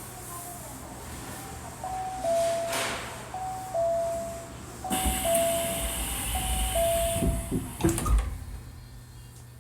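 Hankyu 1300 series door-closing chime: a two-note ding-dong, higher then lower, sounded four times, with a hiss from the doors as they close and several knocks near the end as they shut.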